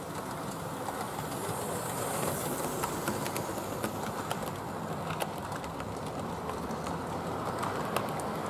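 Model steam locomotive and coaches running past on model railway track: a steady rumble of wheels and motor with frequent irregular clicks as the wheels pass over rail joints.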